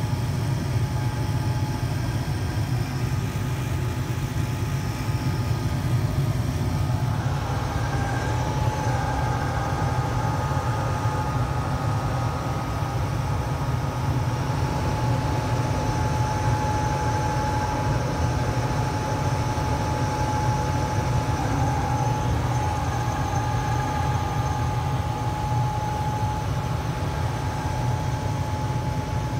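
Carrier Weathermaker furnace's blower motor running with a loud grinding noise: a steady low rumble, joined about seven seconds in by a steady high whine. The grinding is the sign of a failing blower motor that needs replacing.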